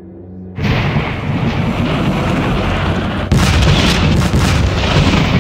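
Dramatic soundtrack with deep booming hits. It comes in loud about half a second in, with a sudden louder hit past the middle.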